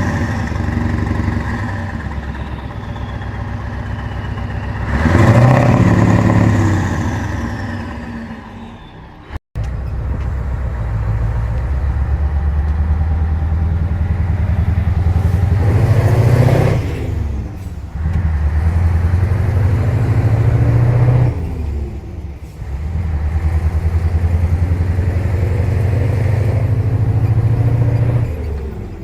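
Scania 143H 450's 14-litre V8 diesel running through an open exhaust pipe: two rev swells that rise and fade. After a break, it pulls steadily, the engine note dropping and climbing again three times, as at gear changes.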